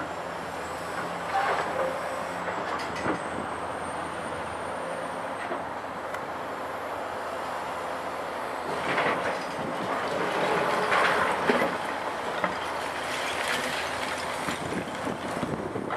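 Caterpillar 345C L UHD demolition excavator's diesel engine running steadily, with scraping and clattering of broken concrete rubble against the steel bucket, heaviest from about nine seconds in as the bucket digs into the debris pile.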